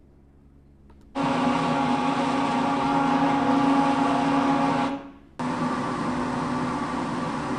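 Recording of a CompAir industrial air compressor running, played over the hall loudspeakers in two takes: a steady machine hum with a strong low tone and many higher tones over a hiss. It stops near the 5-second mark, then returns a few dB quieter with its tones weaker, matching the unit after aerodynamic fan modifications, tuned absorbent and damping.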